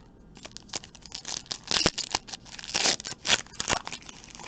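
Trading card pack wrapper being torn open and crinkled by hand, a quick run of crackly tearing noises.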